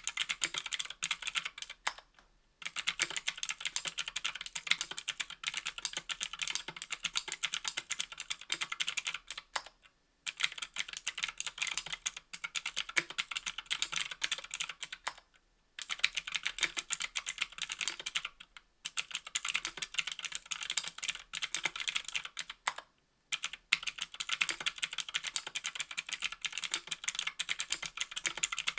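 Fast typing on a 60% mechanical keyboard with an aluminium case and plate, GMK keycaps and clicky Gateron Green switches. The key presses come as a dense run of sharp clicks, with several short pauses between bursts.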